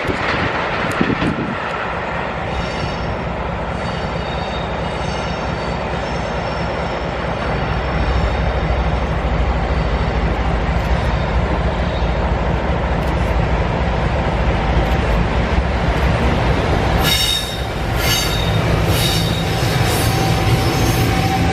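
Electric-locomotive-hauled train rolling past with a steady rumble and high wheel squeal. From about 17 s in, a run of sharp knocks joins it as the wheels cross rail joints.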